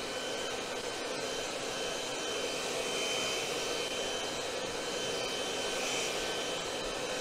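Handheld hair dryer running steadily, an even rush of air with a thin high whine, blowing hot air over leather straps to melt wax leather protectant into the leather.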